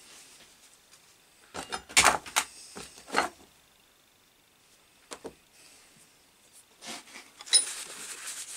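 Knocks and clatter of objects handled on a workbench: a cluster of sharp knocks about two to three seconds in, two lighter knocks a little past the middle, then rustling with a few clicks near the end.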